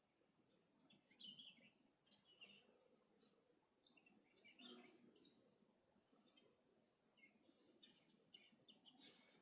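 Faint swamp ambience: many short bird chirps and calls, scattered and overlapping, over a steady high-pitched insect drone.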